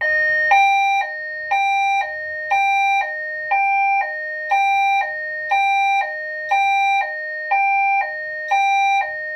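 EST Genesis speaker strobe sounding a homemade two-tone hi-lo evacuation alert tone, its low and high notes switching every half second. This is the alert-tone stage of a voice-evacuation cycle.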